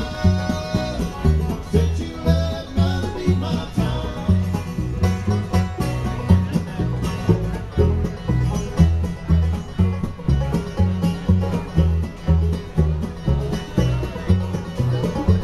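Live bluegrass band playing an uptempo song, with the banjo to the fore over guitar and a steady low bass beat.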